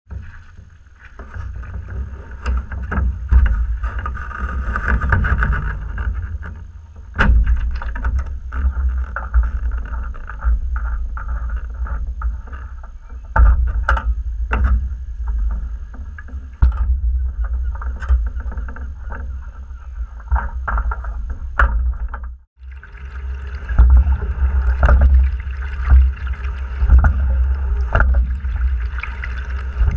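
A Fluidesign single scull on the water: a constant low rumble against the deck-mounted camera, with water washing along the hull and scattered sharp knocks of oars and riggers. The sound cuts off briefly about three-quarters of the way through, then picks up again with the boat being rowed.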